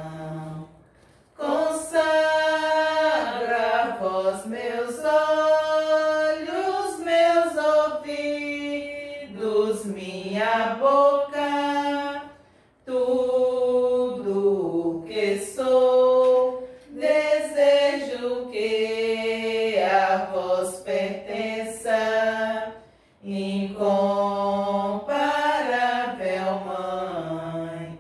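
Women's voices singing a Marian hymn a cappella, in long phrases of held notes with short pauses for breath about a second in, near the middle and a few seconds before the end.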